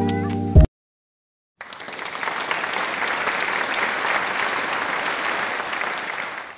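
Background music cuts off in the first second. After a brief silence, applause starts, holds steady and fades out near the end.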